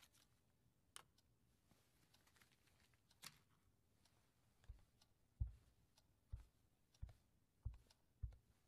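Two small clicks as an object is handled and set down on a table, then slow, heavy footsteps on the floor, about three steps every two seconds, starting a little before halfway.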